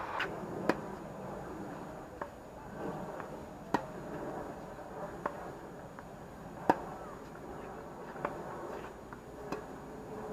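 Tennis ball being hit back and forth with rackets on a hard court: a sharp pop about every second and a half, the loudest about four and seven seconds in.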